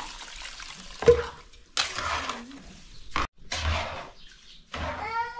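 Water poured from a metal jug into a metal pot of wet grain, with a spoon stirring and knocking against the pot; a sharp metallic clink with a short ring about a second in is the loudest sound, and another sharp click comes a little past the middle. A short wavering cry sounds near the end.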